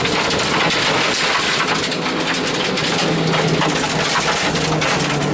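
Rally car engine running hard at speed, heard from inside the cabin, under a dense hiss of tyres on loose gravel with constant stones cracking against the underbody.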